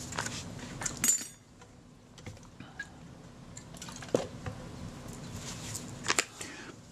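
Light metallic clicks and taps of tweezers and tiny parts on a Kodak Retina IIa camera's mechanism as a small spring is fitted. There are a few separate clicks, the sharpest about a second in.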